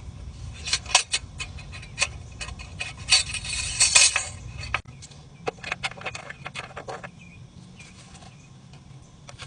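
Light clicks and clatters of hard objects being handled, with a denser scratchy rattle about three to four seconds in, then the clicks die away to a low steady hum.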